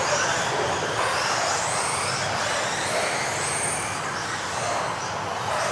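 Several electric RC off-road racing cars driving laps together, their motors giving high whines that rise and fall as they accelerate and brake, over a steady hiss of tyres on the floor.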